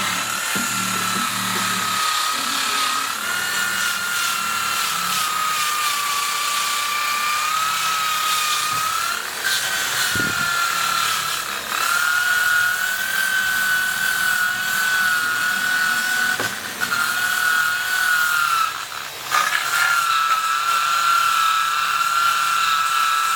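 A handheld power tool working a wooden board, running with a steady high whine that wavers in pitch and dips briefly a few times.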